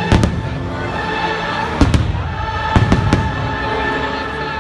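Aerial fireworks shells bursting with about six sharp bangs, coming in quick pairs near the start, just before two seconds in and around three seconds in, over loud sustained show music.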